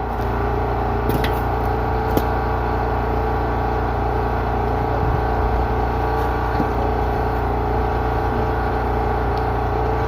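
Steady mechanical hum, like an engine or motor running at an even speed, with two faint clicks about one and two seconds in.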